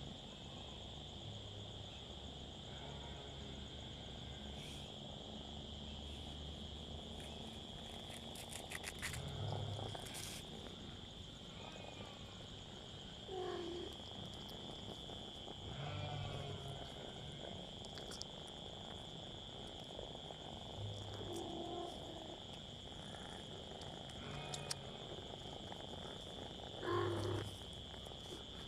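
Cats mewing in short calls every few seconds, the loudest near the end, over a steady high shrill drone of crickets.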